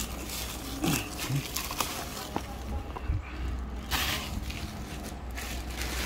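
Bubble wrap crinkling and rustling as it is pulled and peeled off a cardboard box, with a louder rasp of wrap or tape tearing away about four seconds in.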